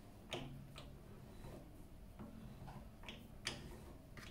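A handful of faint, scattered clicks and ticks as the carriage of an Optimum TU 2004V mini lathe is wound along the bed, carrying a dial indicator along a test bar.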